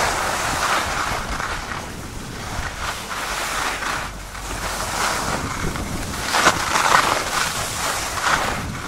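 Wind rushing over the microphone of a camera moving downhill, mixed with the scrape of edges sliding on packed snow, swelling and easing with the turns.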